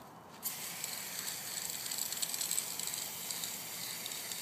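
Aerosol spray-paint can hissing as paint is sprayed onto a wall. It starts about half a second in after a short pause and then holds steady.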